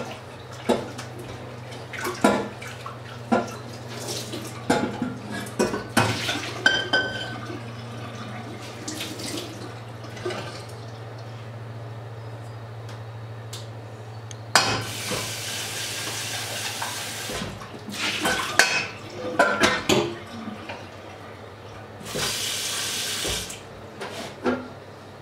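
Kitchen tap running into a sink in two spells, one about halfway through and a shorter one near the end, with clinks and clatter of metal pots and dishes being handled and rinsed. A low steady hum underlies the first half and stops about halfway.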